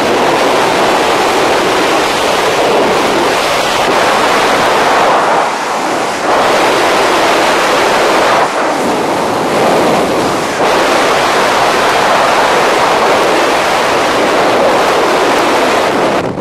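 Loud, steady rush of wind over the microphone, with a few brief dips.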